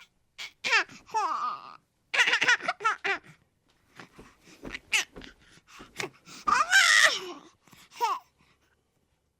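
A baby cooing and babbling in a string of short, high-pitched sounds that glide up and down, with laughing sounds mixed in and brief silences between them.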